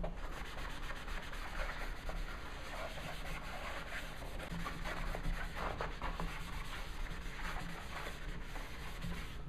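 A Mr. Clean Magic Eraser (melamine foam sponge) scrubbed back and forth over a cardboard box: steady dry rubbing made of many quick, short strokes.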